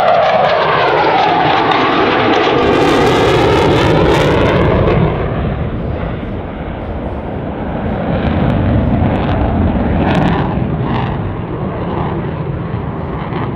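Twin General Electric F404 turbofans of a CF-18 Hornet fighter jet passing by. The roar is loudest for the first five seconds and falls in pitch as the jet goes past, then dips and swells again as the jet keeps manoeuvring.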